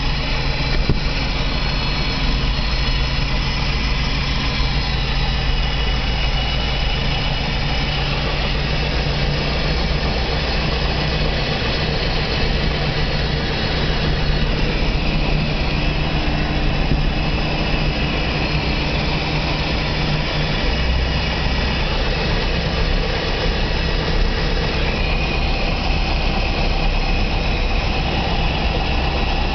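Light plane's engine and propeller running steadily, heard from inside the cabin.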